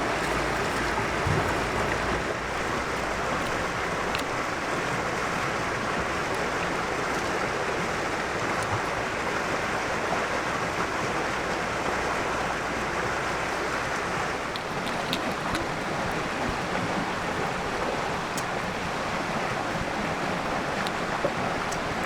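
River water flowing steadily, an even rushing. A low rumble underneath fades out about two-thirds of the way through.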